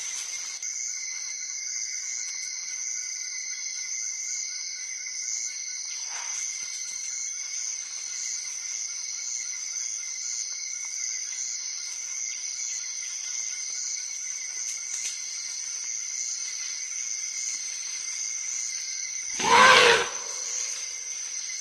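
Steady high-pitched chorus of forest insects, broken near the end by one short, loud, pitched call from an African forest elephant.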